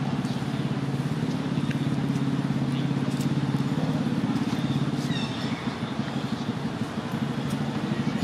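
An engine running steadily with a low, pulsing drone, with a brief high squeak about five seconds in.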